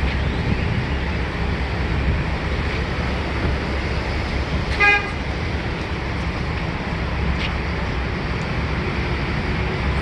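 Steady traffic rumble with a single short car horn toot about halfway through.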